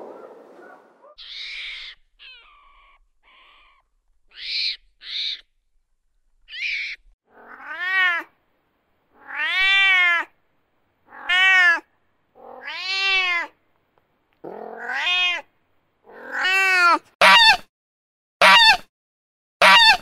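Cat meowing over and over, each meow rising and then falling in pitch, roughly one every second and a half, after a few short high chirps at the start. Near the end the calls come shorter, louder and quicker.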